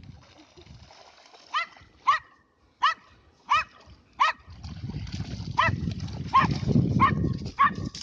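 A dog barking repeatedly, about nine short high-pitched barks. From about halfway through, a low rustling noise builds under the barks.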